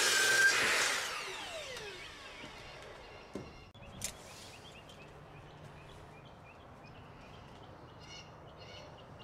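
Electric miter saw running at full speed as it finishes a cut through a pressure-treated pine board, then the motor winds down with a falling whine over about two seconds. After that there is a low background hum, with a sharp click about four seconds in.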